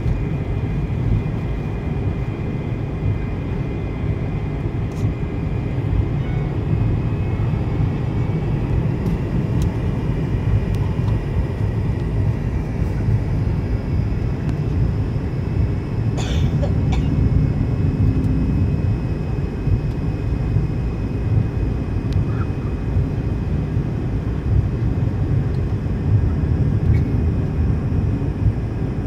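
Cabin noise of an American Airlines MD-80 (Super 80) taxiing on its rear-mounted Pratt & Whitney JT8D engines: a steady low rumble with a faint, even high whine, and a brief click about halfway through.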